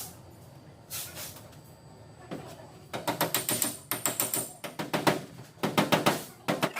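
Rapid series of light, sharp taps on a car's body panel, coming in quick clusters from about halfway through: the tapping-down of paintless dent repair on a Mazda CX-9.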